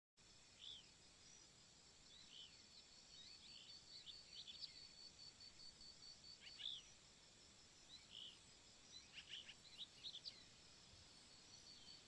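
Faint outdoor ambience: scattered short, high bird chirps, several clustered around the middle and near the end, over a steady high pulsing tone.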